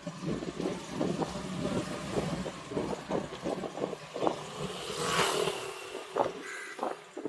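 Road traffic: a car goes by, loudest about five seconds in, over uneven rumbling and buffeting.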